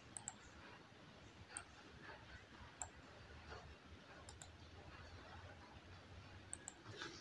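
Faint, sharp clicks of a computer mouse button, a second or more apart and some in quick pairs, as right-click menus are opened and dismissed, over a faint low hum.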